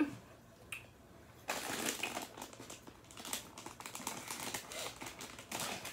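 A plastic candy wrapper crinkling in irregular crackles as it is handled and tugged at, the packet proving hard to open. The crinkling starts about a second and a half in, after a short quiet spell.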